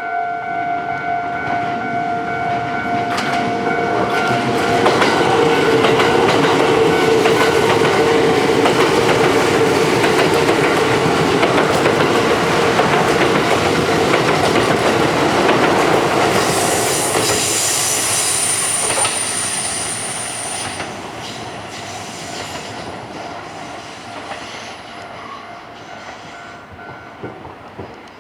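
Eight-car Kintetsu limited express (22000 series coupled to 12200 series) passing a level crossing: a rising rumble and clickety-clack of wheels over rail joints, loudest in the middle. About two-thirds of the way through there is a high-pitched wheel squeal as the train runs through the curve, then the sound fades away. A steady warning tone, likely the crossing bell, runs under the first part and stops shortly before the end.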